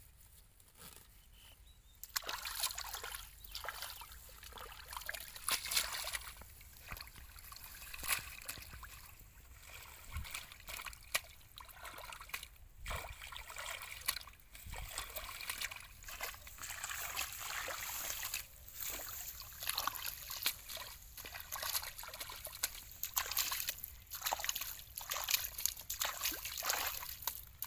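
Hands sloshing and splashing in shallow pond water, with water trickling and dripping in irregular bursts that start about two seconds in.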